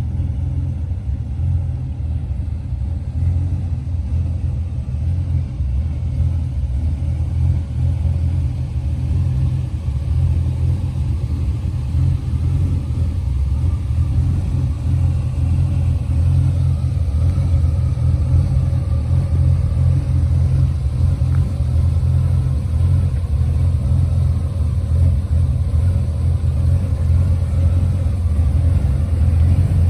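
1977 Chevrolet Corvette's small-block V8 running with a steady, deep rumble.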